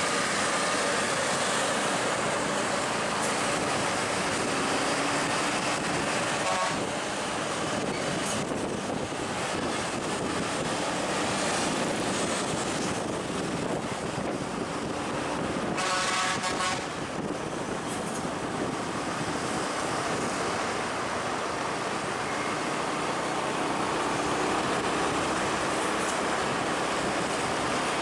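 Heavy road vehicles with engines running and steady traffic noise. A vehicle horn sounds briefly about six and a half seconds in and again for about a second around sixteen seconds in.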